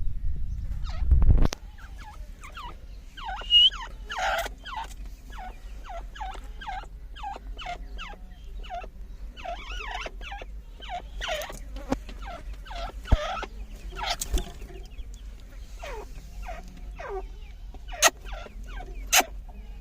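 Several dakhni teetar partridges calling together in a rapid, continuous run of short chirping calls. About a second in there is a loud low rumble, and a few sharp clicks come near the end.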